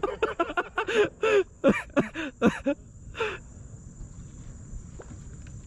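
A person's laughter, a quick run of short bursts for a little under three seconds, with one more about three seconds in, then only a low steady background noise.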